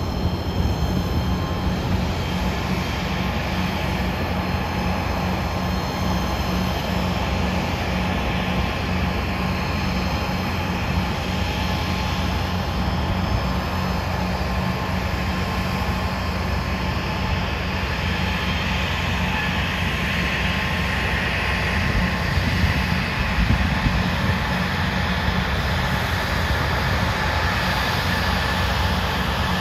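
Embraer ERJ-145's Rolls-Royce AE 3007 turbofan engines running at taxi power as the jet turns on the ramp: a steady jet rumble with a high whine that grows stronger past the middle.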